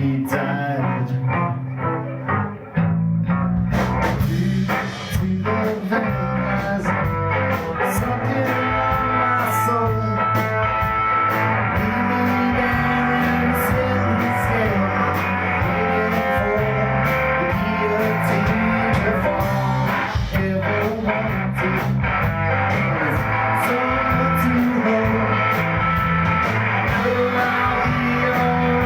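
Live rock band playing: electric guitar, bass and drums with singing, and a brief drop in level about three seconds in.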